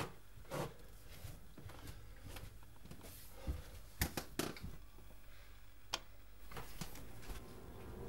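Footsteps of a man walking down carpeted stairs and across a room: a few soft, irregular thuds with sharper clicks among them, over faint room hiss.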